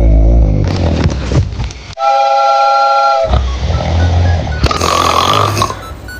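Loud snoring in low, rumbling snores. About two seconds in it breaks into a steady whistle of several held tones lasting about a second.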